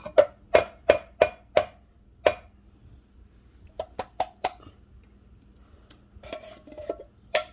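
Sharp knocks on an upturned metal soup can, about seven in two seconds, to shake thick cream of mushroom soup out into a glass bowl. A few lighter taps follow, then a spoon scraping and tapping inside a can.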